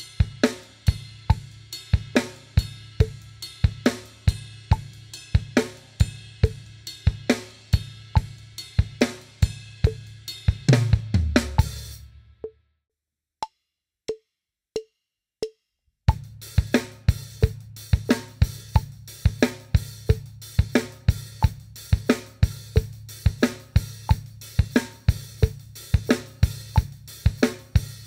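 Acoustic drum kit playing a funky soca-style groove: open hi-hat on each beat, syncopated bass drum and a snare backbeat on 2 and 4. The groove stops about 12 seconds in. Four evenly spaced count-in clicks follow, and the groove starts again about 16 seconds in.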